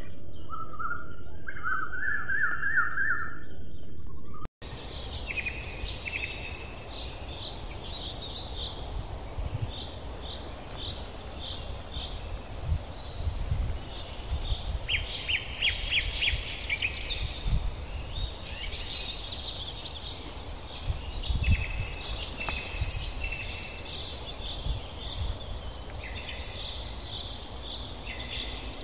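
Small birds chirping and trilling in many short, overlapping calls over a low rumble of wind or distant noise. The first four seconds or so hold a louder, steadier sound that cuts off abruptly.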